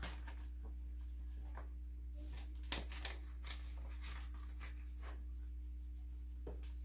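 Paper bills and cash envelopes in a budget binder being handled: scattered soft rustles and light clicks, with one sharper tap a little under three seconds in, over a steady low hum.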